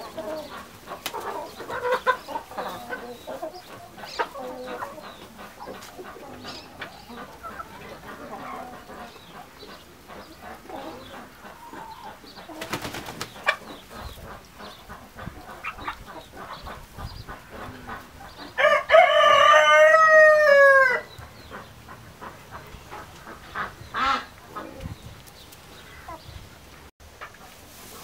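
Domestic chickens clucking now and then, with one loud rooster crow about two-thirds of the way in: a single call lasting about two seconds that drops in pitch at its end.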